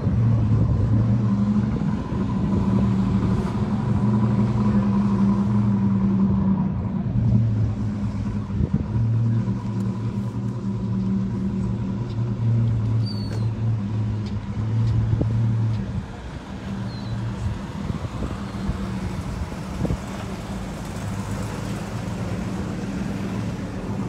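A car engine idling with a steady low hum that fades out about two-thirds of the way through.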